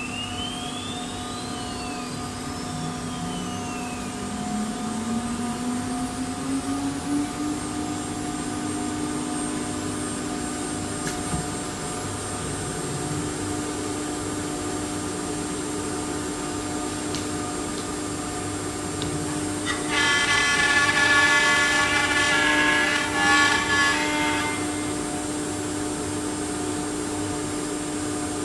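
CNC router spindle spinning up, a rising whine that settles into a steady high hum. Near the end there is a louder, harsher stretch of about four seconds as the bit cuts into the wooden door.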